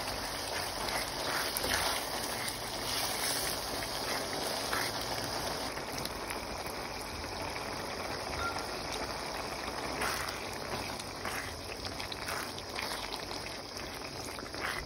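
Tomato sauce with ground pork simmering and bubbling in a wok, a steady sizzling hiss with a few short clicks and scrapes of a silicone spatula against the pan.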